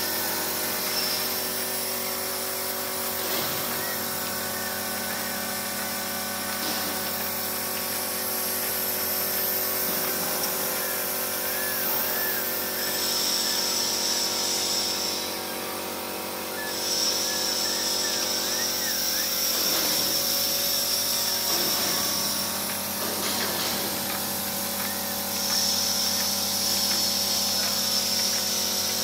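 Plastic corrugated pipe production line running: a steady machine hum of motors and cooling fans, with several held tones. A high hiss comes and goes over the second half.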